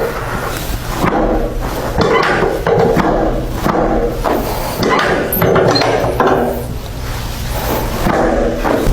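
Chiropractic adjustments: a run of sharp thuds and cracks, roughly one a second, over a steady low hum.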